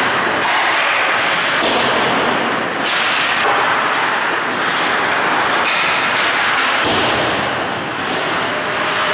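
Ice hockey play heard from rinkside: a loud, steady rush of noise from skates on the ice and the rink, with scattered knocks and thumps of sticks, puck and boards.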